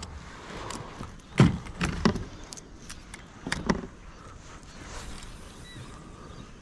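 Knocks and clunks of fishing gear being handled in a plastic kayak, gear bumping against the hull and fittings: a loud knock about a second and a half in, a quick double knock just after two seconds, and another pair near four seconds.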